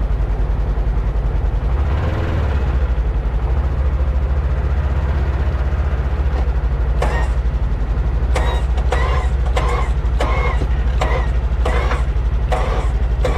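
A vehicle engine running with a steady low rumble. From about seven seconds in, a run of short sharp sounds comes about two a second.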